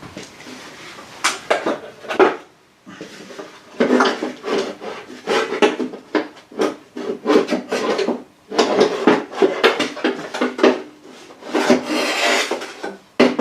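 Metal wiper linkage parts being worked loose and pulled out: irregular scraping, rattling and knocking of metal on metal, with a faint ringing of the parts.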